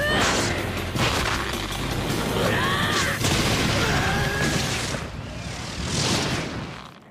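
Anime fight soundtrack: dense impact and boom effects over music, with a few short shouted cries, cutting off sharply near the end.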